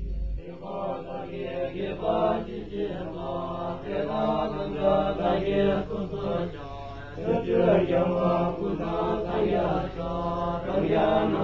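Buddhist monks' chanting: male voices intoning syllables over a steady low held tone.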